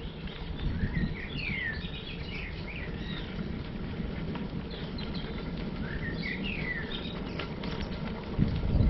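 Bicycle tyres rolling over a light gravel path, a steady low rumble and crunch with a heavier jolt near the end. A songbird sings a short, quick phrase of chirps twice, about a second in and again about six seconds in.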